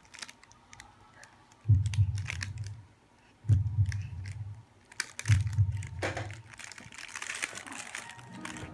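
Three dull, low thumps about two seconds apart, among light crinkling of a paper sheet and small scattered clicks.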